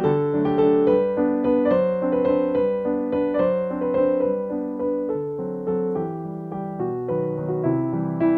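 Background music played on a piano-like keyboard, a run of notes changing every fraction of a second.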